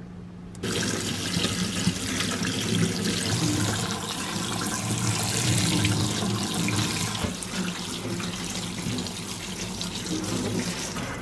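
Kitchen tap water running in a steady stream onto raw shrimp in a perforated metal colander, splashing through the shrimp and the colander; the flow starts abruptly about half a second in.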